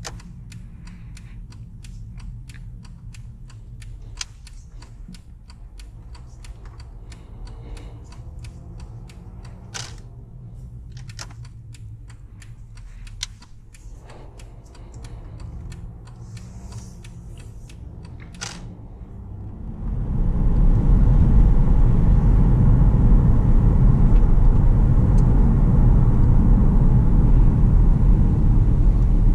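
The 3.0-litre V6 diesel of a Mercedes-Benz E 320 CDI, heard from the cabin: a low rumble at slow speed, with many scattered light clicks and ticks. About twenty seconds in it cuts abruptly to a much louder, steady rumble of the car driving along.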